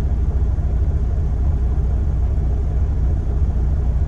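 Semi-truck diesel engine idling with a steady, even low rumble.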